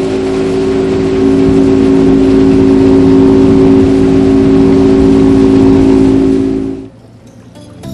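Motorboat engine running steadily under way, a constant hum over the rush of water and wind; it gets louder about a second in and cuts off abruptly near the end.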